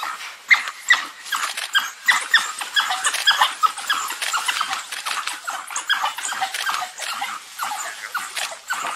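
A pack of African wild dogs twittering and squeaking, many short high calls overlapping several times a second: the excited calling of the pack at a kill.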